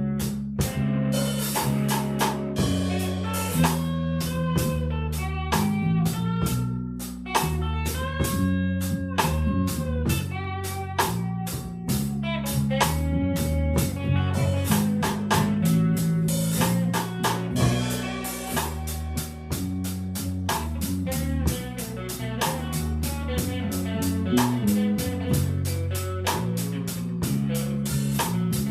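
Band playing a slow blues instrumental: electric lead guitar with bent notes over bass guitar and a drum kit, with no vocals.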